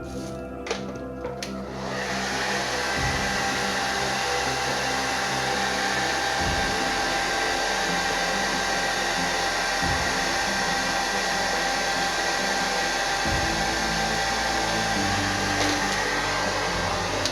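Handheld hair dryer switched on about two seconds in and running steadily, a loud blowing hiss with a fixed high whine from its motor and fan.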